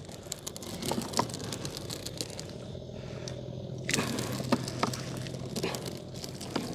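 Wet nylon gillnet being hauled hand over hand into a small boat, with scattered scraping, crackling and clicking as the mesh and floats drag over the side. Under it runs a low steady hum.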